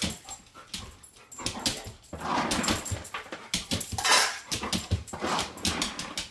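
A dog making a run of short, rough, noisy sounds, with sharp clicks and knocks in between.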